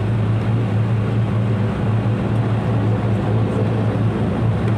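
Airliner cabin noise: a steady, loud low drone with a deep hum that holds unchanged.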